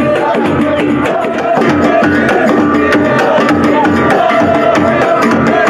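Moroccan Sufi procession music: frame drums and a double-headed drum beaten in a fast, even rhythm, with a sustained melody line held above the drumming. It gets louder about a second and a half in.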